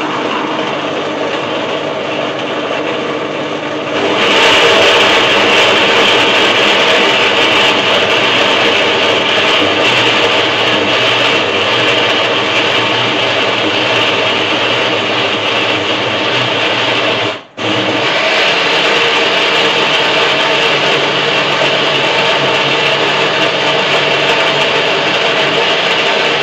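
Electric countertop blender grinding chopped coconut pieces in water. Its motor whirs steadily, gets louder and brighter about four seconds in, and drops out for a split second about two-thirds of the way through before running on.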